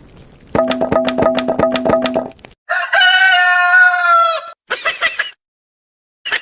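A rooster crowing, heard as a meme sound effect: one long drawn-out call in the middle, preceded by a rapid rattle of clicks over a steady hum and followed by a short burst.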